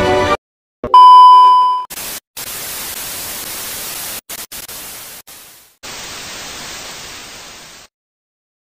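An intro sound effect: one loud test-tone beep lasting about a second, followed by TV static hiss with several brief cutouts for about six seconds, which stops abruptly near the end.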